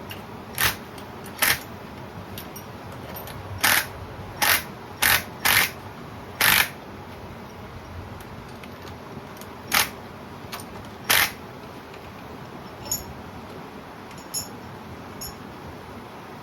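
A series of sharp metallic clicks and clinks, about nine loud ones spaced unevenly over the first eleven seconds, then a few faint ticks: hand tools and valvetrain parts knocking together as the engine's rocker arms are fitted and adjusted.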